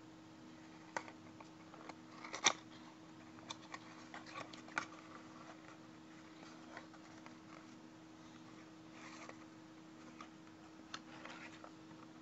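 A plastic toy-car packet being handled and torn open: scattered crinkles and sharp clicks, the loudest about two and a half seconds in, with more rustling near the end. A steady low hum runs underneath.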